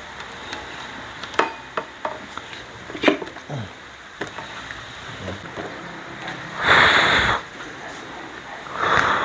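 Scattered light clicks and knocks of electric fan parts being handled, then two short, loud bursts of hissing noise, the first about two-thirds of the way in and the second near the end.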